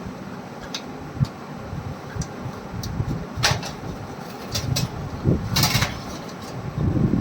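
Workshop handling noise from small metal parts: scattered clicks and clinks, louder about halfway through, and a short rattling scrape about five and a half seconds in, over a low rumble.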